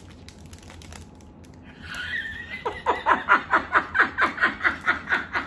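A woman laughing hard. It begins about two seconds in with a high squeal, then breaks into rapid, even pulses of laughter, about four or five a second.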